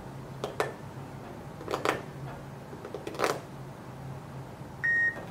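A few soft rustles and clicks from hands squeezing a rubbery spiky squishy toy, in three pairs, then near the end one short, steady electronic beep from a phone timer, the signal that the turn is up.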